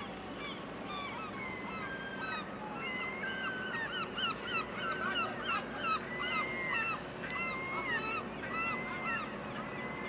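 A flock of birds calling: many short, overlapping chirping calls, busiest in the middle, over a steady low hum.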